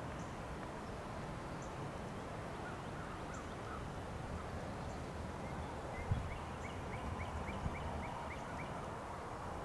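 A bird calling a rapid run of short, falling notes, about four a second for nearly three seconds, starting about six seconds in, over steady outdoor background noise. A fainter, lower run of similar notes comes about three seconds in.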